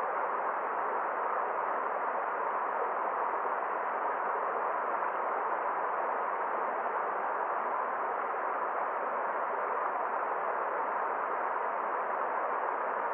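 Forest stream running: a steady, even rush of water with no splashes or changes, sounding somewhat muffled.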